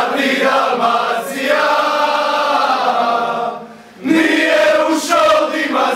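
A group of men singing a slow Croatian song together in unison, loud, on long held notes. The singing breaks off briefly about four seconds in, then picks up again.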